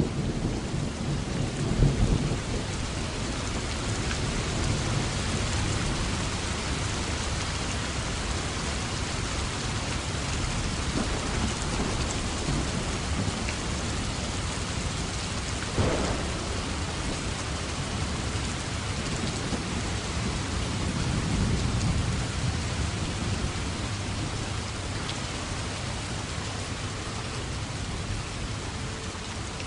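Steady heavy rain, with low rolls of thunder swelling near the start and again about two-thirds of the way in. A single brief sharp sound comes about sixteen seconds in.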